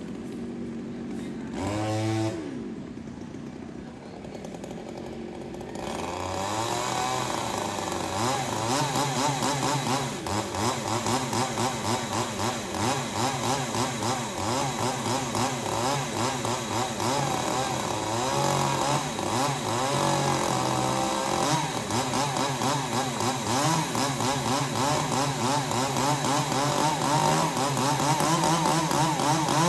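Two-stroke chainsaw revved briefly about two seconds in. From about six seconds in it runs continuously, its pitch rising and falling.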